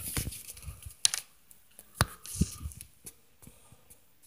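Irregular thuds and knocks from an upstairs apartment, as of stomping overhead. Dull low thuds come near the start and about two and a half seconds in, with sharp clicks about one and two seconds in.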